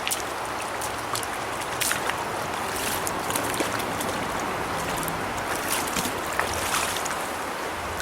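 Stream water rushing over riffles: a steady wash with many small splashes and ticks.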